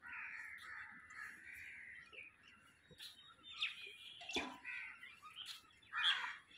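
Birds calling: a steady chatter for the first couple of seconds, then several loud, harsh crow caws.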